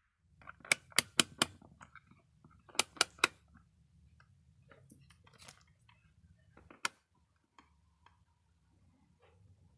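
Sharp clicks in quick runs: four within about a second, then three more about two seconds later, and a single click near the seventh second, with fainter ticks in between over a low, steady hum.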